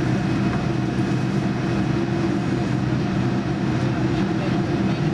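Steady cabin noise inside a Boeing 787-9: the General Electric GEnx engines idling, heard as a low hum with a few steady low tones over a hiss of air.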